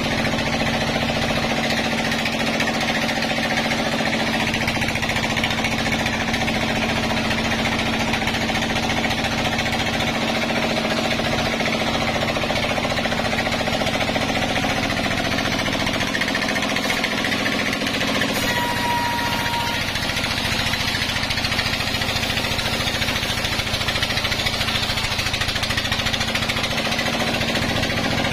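Sawmill log band saw and its drive running, a loud, steady, even machine noise as logs are fed along the saw table.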